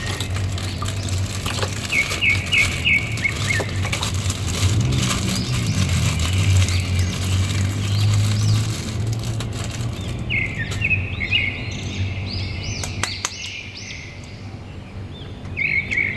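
Thin plastic bag crinkling and water sloshing in a plastic basin as a wet toy is unwrapped by hand, over a low steady hum. Small birds chirp in quick runs of short notes about two seconds in, again from about ten seconds, and near the end.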